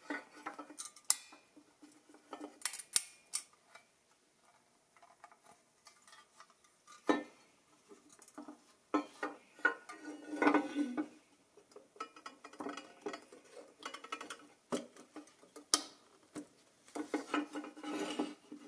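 Hands handling a powder-coated pressed-steel toy Jeep body: light metallic clicks, taps and rubbing as the parts are turned over and pressed together. There are a few sharp clicks, and stretches of scraping about ten seconds in and near the end.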